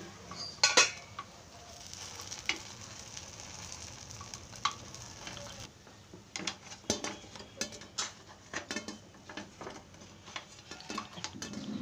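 Ponganalu (paniyaram) sizzling in the hollows of a paniyaram pan, with a wooden stick clicking and scraping against the pan as they are turned and lifted out. The sizzle drops away about halfway through, and the clicks come more often after that.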